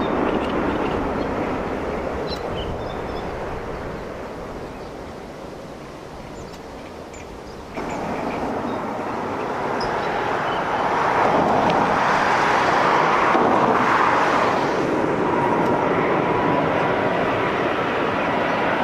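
Airbus A330-243 jet engines (Rolls-Royce Trent 700). First, an airliner rolling out down the runway after landing, its noise fading away. After a sudden cut about eight seconds in, a second A330 on final approach grows steadily louder, with a thin steady whine over the rush near the end.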